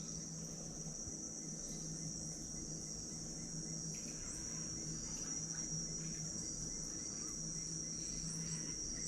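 Rainforest insects keeping up one continuous high-pitched drone, with a faint low hum beneath.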